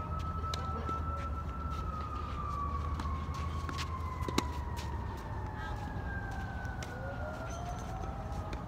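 A siren wailing, its pitch sliding slowly down and then starting back up near the end. Sharp pops of tennis balls being struck come through it, the loudest a racket hit about four and a half seconds in.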